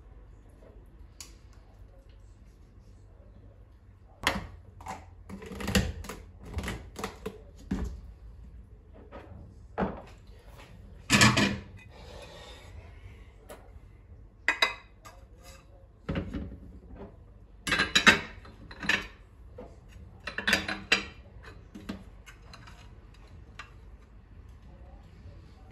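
Dishes and cutlery clinking and knocking in irregular bursts, as when tableware is handled and set down.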